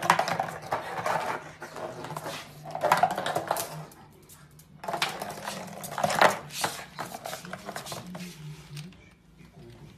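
Crushed plastic water bottle crackling and clattering on a tile floor as a pug bites and paws at it, in two bouts of a few seconds with a short pause between.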